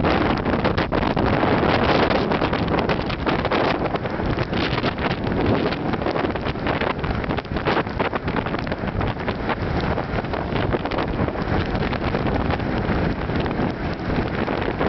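Strong wind buffeting the microphone in a storm, a loud, gusting roar that flickers in level.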